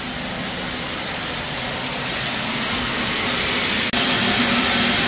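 Live steam hissing steadily from an open steam-line drain on a stationary steam engine being warmed through, slowly growing louder, and louder still after a brief break about four seconds in.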